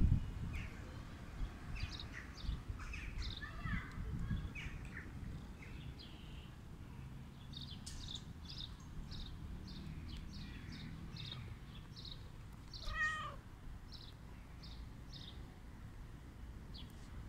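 Domestic cat, sitting on a lap being stroked, gives one short meow about three-quarters of the way through, over a low, quiet rustle.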